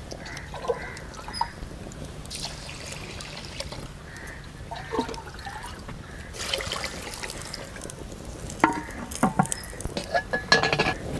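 Water poured from a small brass pot into a clay cooking pot, in two pours of a second or so each. Near the end come several sharp clinks and knocks as the brass pot is dipped into a clay water pot to refill.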